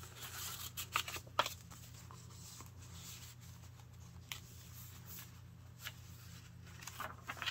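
Paper rustling and soft taps as stiff journal cards and an envelope pocket are handled and the paper pages of a handmade journal are turned over, in scattered short bursts. A faint steady low hum runs underneath.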